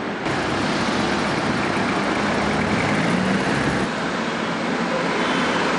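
Street traffic noise: cars passing with a steady road rumble. The sound changes abruptly about a third of a second in and again near four seconds.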